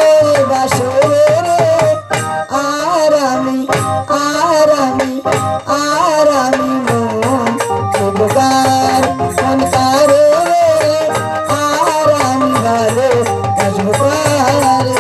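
Live Bengali folk song: a woman's voice sings a wavering melody through a microphone over steady held keyboard tones, with a dhol drum struck in a regular rhythm.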